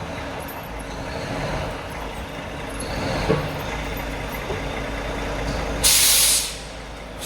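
Truck engine running steadily as the truck creeps its inside dual onto a wooden block, then a short, loud hiss of the air brakes about six seconds in.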